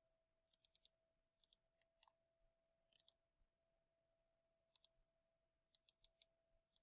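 Faint computer mouse clicks in quick runs of two to four, recurring every second or so, over near silence with a faint steady tone.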